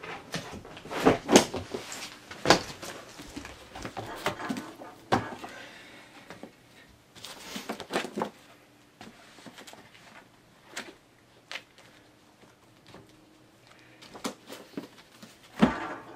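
Books being set down and stacked on a freshly glued board as weights: a run of dull knocks and handling rustle, densest in the first few seconds, then scattered taps and one louder knock near the end.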